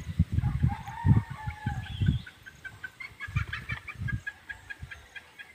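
A rooster crows once, a long call starting about half a second in, over irregular low thumps. From about three seconds in there is a rapid run of short high chirps, roughly six a second.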